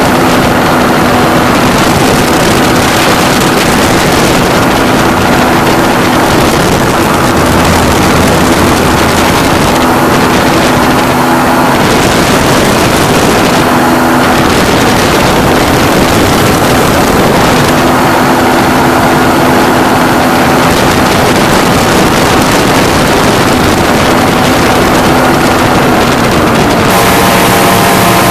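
Powered parachute's engine and propeller running steadily in flight, loud, with wind rushing over the microphone. The engine's note shifts near the end.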